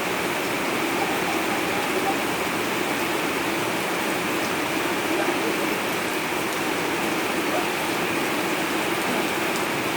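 Rain falling steadily, a continuous even hiss with no let-up.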